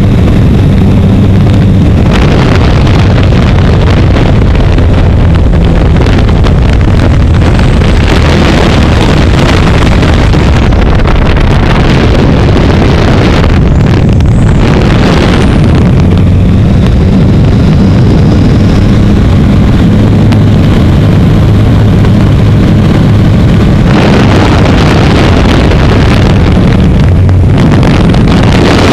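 Onboard sound of a small aerobatic biplane in flight: the piston engine and propeller drone steadily while wind rush over the microphone swells and eases several times as the plane manoeuvres.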